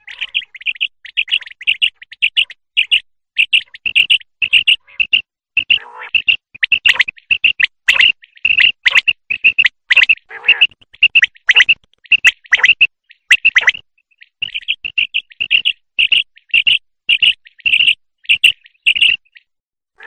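Common quail calling: rapid runs of short, high chirping notes, repeated densely, with a few lower, rougher notes in between and a brief pause about fourteen seconds in.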